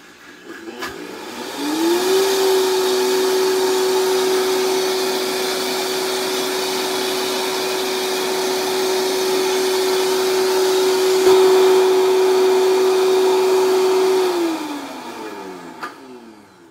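Countertop blender motor spinning up over about two seconds, running steadily at high speed for about twelve seconds, then winding down near the end. It is grinding a thick, chunky almond, garlic, pecorino and olive-oil pesto.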